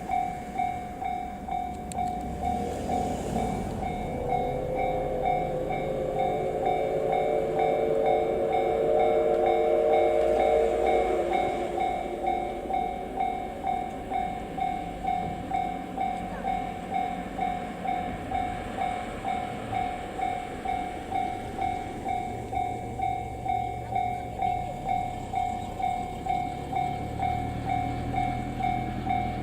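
Japanese level-crossing alarm bell ringing steadily, about two strikes a second. From about a second in until about eleven seconds in, the C57 180 steam locomotive's whistle sounds one long, several-toned blast.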